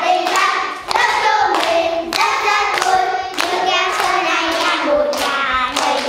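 A class of young children singing together and clapping their hands in time, about two claps a second.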